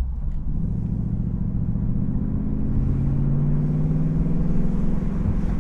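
Ford Mustang GT's 5.0-litre naturally aspirated V8 pulling under acceleration, its note rising steadily, with the stainless active-valve exhaust in sport mode.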